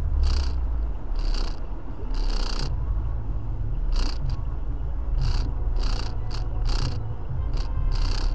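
A car driving in heavy rain, heard from inside the cabin: a steady low rumble, with short hissing swishes every second or so.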